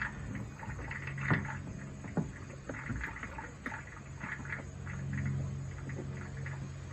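Small hand tools working on a plastic robot-vacuum housing: irregular clicks, knocks and short scraping as a screwdriver and pick lever a rubber drive belt onto its gears. A steady low hum runs underneath.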